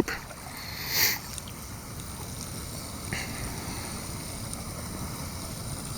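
Steady rush of flowing river water, with a brief loud swish about a second in and a fainter one about three seconds in.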